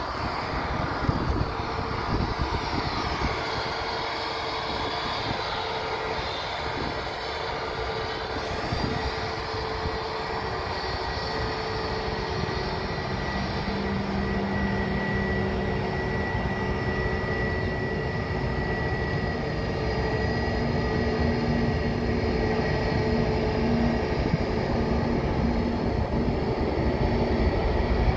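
Jet airliner engines running with a steady whine over a low rumble. The sound grows slowly louder toward the end.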